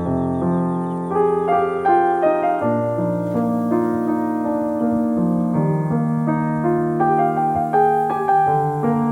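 Background music: a slow, gentle piano piece playing steadily.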